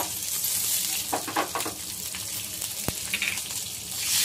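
Green chillies and curry leaves sizzling in hot oil in a nonstick pan, with a few crackles. Just before the end, water is poured into the hot oil and the sizzling gets louder.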